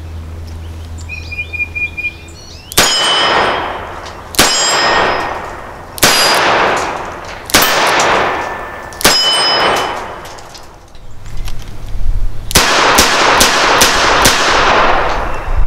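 Taurus Defender 605 small-frame revolver with a 3-inch barrel firing .38 Special 158-grain lead round-nose practice loads. There are five shots about a second and a half apart, most followed by a metallic ring, then a quicker string of shots near the end.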